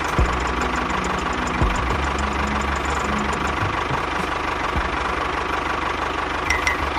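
A small motor running steadily with a fast, even pulsing, with a few brief high gliding tones near the end.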